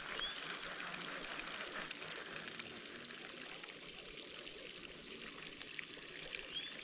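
Faint steady trickle of running water, with a short rising chirp near the start and another near the end.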